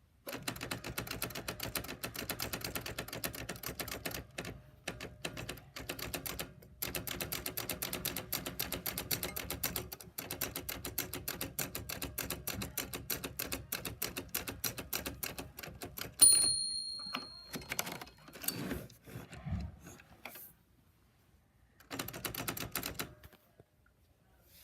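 Typewriter keys struck in rapid, continuous typing, with a few short pauses. About sixteen seconds in, the typewriter's bell gives a loud ring, followed by a few knocks and a short last burst of typing.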